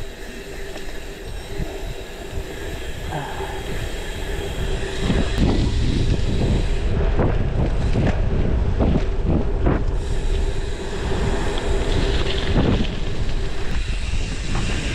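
Wind buffeting the microphone of a camera riding on a gravel bike moving along a concrete road, over tyre noise with a steady hum. From about a third of the way in, a run of regular short thumps, roughly two a second, comes with the ride.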